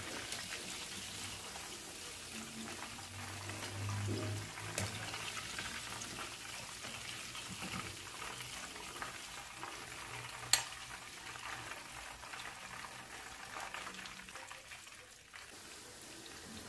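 Hot oil bubbling and sizzling as batter-coated chicken pieces deep-fry in a pan, with two sharp clicks about five and ten seconds in.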